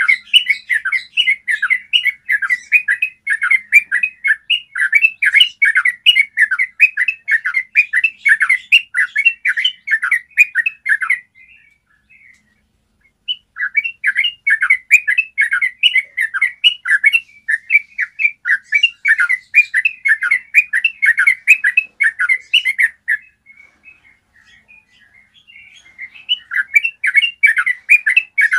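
Yellow-vented bulbul singing a long rolling chatter of rapid, clear notes in long runs, breaking off twice for a few seconds before starting again.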